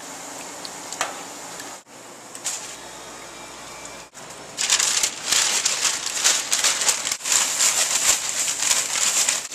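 Paper bag shaken hard with freshly fried fastnachts inside to coat them in sugar: a loud, rapid crinkling rustle starting about halfway through. Before it, a steady hiss of dough frying in a commercial deep fryer.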